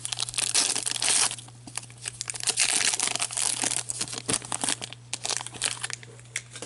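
Shiny trading-card pack wrapper crinkling and tearing as a pack of hockey cards is opened by hand and the cards are pulled out. The crackling comes in uneven bursts, loudest about half a second to a second and a half in and again around two and a half to three seconds.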